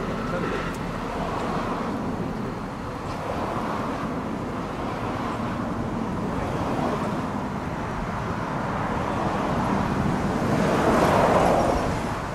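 A JR West 521 series four-car electric train rumbling away along the track, with a few clicks of wheels over rail joints at the start. A rushing noise swells near the end and is loudest just before it fades.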